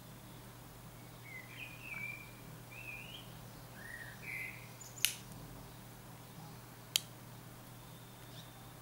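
A few faint bird chirps, then two sharp clicks about two seconds apart from handling plastic Ray-Ban sunglasses, the temple arm hinges snapping.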